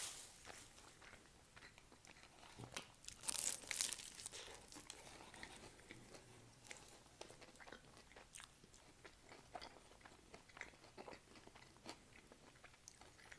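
A person biting into and chewing a shawarma, heard close up. There are two louder bites, one right at the start and one about three and a half seconds in, then a long run of soft, wet chewing clicks and smacks.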